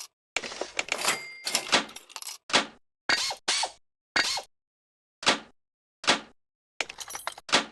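A series of sharp knocks, about eight separate strikes at uneven intervals, each dying away quickly, with a denser clatter at the start and another near the end.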